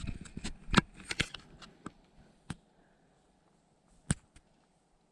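Dry leaves and twigs crackling and snapping underfoot as someone steps through the forest floor: a quick run of sharp snaps over the first two seconds, then one more about four seconds in.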